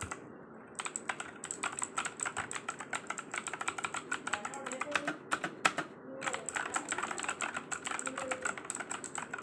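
Redgear Shadow Blade MK853 mechanical keyboard being typed on: rapid, continuous key clicks starting about a second in, with a brief pause a little past the middle.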